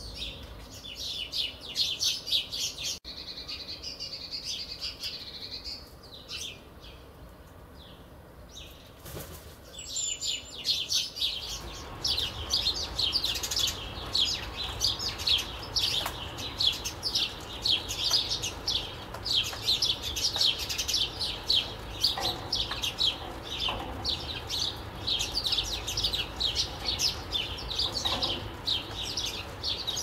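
Small birds chirping in quick, overlapping high notes: scattered at first, then a dense, unbroken chatter from about a third of the way in.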